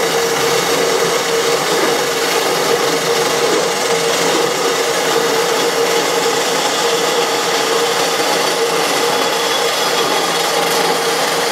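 Electric power tool running steadily while it works stainless steel exhaust tubing. A constant motor tone sits under a continuous grinding noise.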